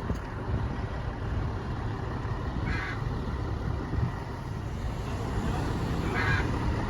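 Two short harsh calls from a hyacinth macaw, about three seconds and six seconds in, over the steady low rumble of an idling engine.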